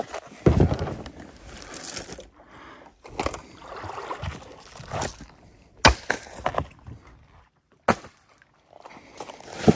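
Camping gear being handled and set down: several sharp knocks and thumps, with rustling and scraping in between.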